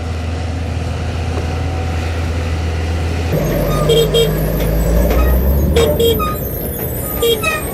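Scooter riding over a gravel road, then from about three seconds in the deeper rumble of a dump truck's diesel engine close alongside. A horn sounds short double beeps three times.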